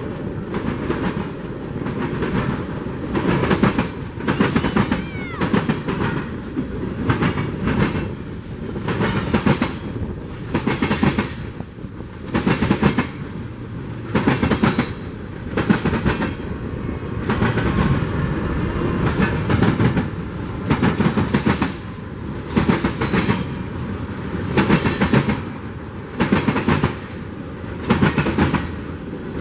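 Freight train rolling past, its wheels clacking over rail joints in a steady rhythm about once a second over a continuous rumble of the cars.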